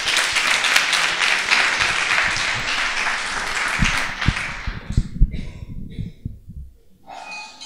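Audience applauding, then dying away after about five seconds, with a few low thumps as it fades.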